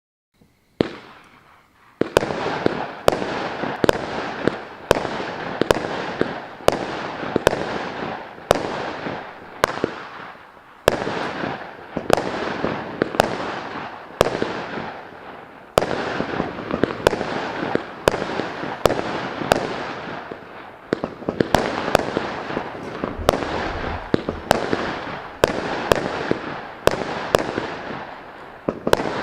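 A Maxsem 100-shot, 0.6-inch firework cake firing in rapid succession. There is one shot about a second in, then a steady barrage of sharp bangs about two a second, each trailing off in a fading wash of sound.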